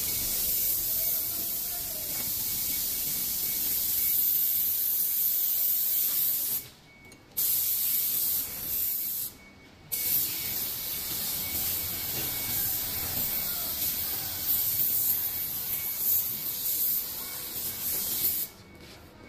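Spray gun hissing steadily with compressed air, stopping twice briefly for about half a second each time and cutting off near the end as the trigger is released.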